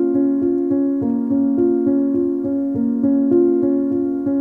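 Piano music: a steady pattern of repeated notes, a few a second, over held lower notes.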